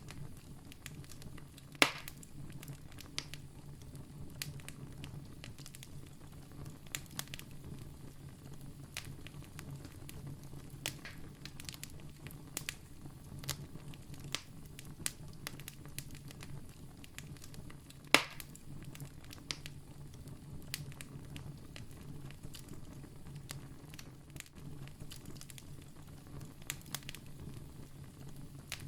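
Wood campfire burning, with frequent small crackles and two loud pops, one about two seconds in and one a little past the middle, over a steady low hum.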